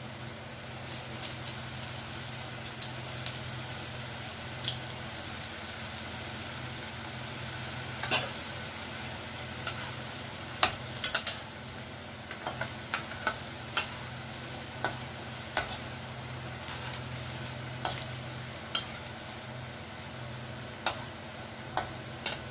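Jackfruit koftas deep-frying in hot mustard oil in a kadai: a steady sizzle with scattered sharp pops, and a spatula stirring them in the pan.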